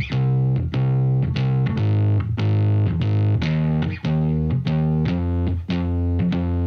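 Background music: a distorted, guitar-like plucked instrument playing a steady run of notes with a sharp attack on each.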